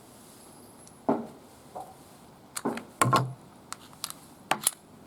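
About eight sharp metallic clicks and clacks at irregular spacing, the loudest a little after one second and around three seconds in.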